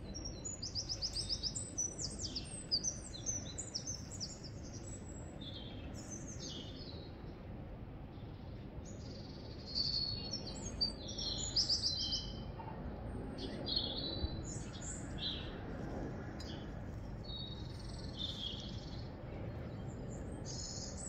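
Small birds chirping and singing, with runs of quick high chirps in the first few seconds and again from about ten seconds in, over a steady low background noise.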